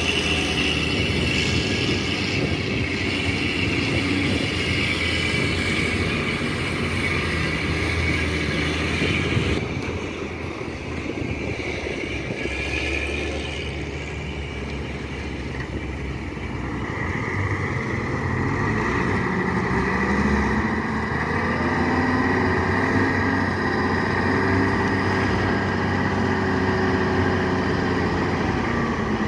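Diesel dump truck engines running. In the second half the engine note rises and is held higher, as it drives the hydraulic hoist that raises the tipper bed to dump soil.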